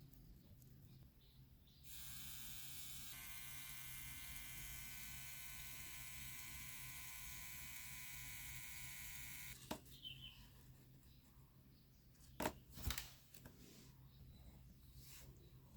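A small electric motor runs with a steady buzzing whine for about eight seconds, its pitch shifting slightly about a second after it starts, then cuts off. A few sharp clicks or knocks follow.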